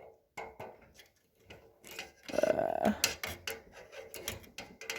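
Small metallic clicks and scrapes of a wrench unscrewing the burner jet of a Bosch propane water heater, scattered at first. A short rubbing scrape comes about two seconds in, then a quick run of clicks as the jet comes free.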